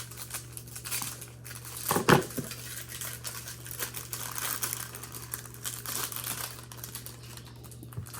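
Plastic trading-card pack wrapper and packaging crinkling and tearing as it is opened by hand, with a brief louder noise about two seconds in.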